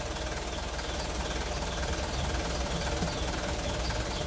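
A vehicle engine idling steadily, with a constant low hum.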